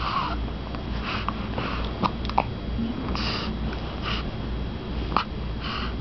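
Baby hiccupping: short, sharp hiccups at irregular intervals of about a second, among breathy, sniffly breaths.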